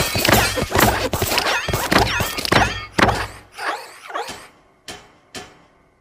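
The Pixar intro lamp sound effects, pitch-shifted and stacked in several copies ('G Major' effect), a dense clatter of thuds with short gliding squeaks. About halfway through it thins into a few separate thuds, each fainter and further apart, and dies away.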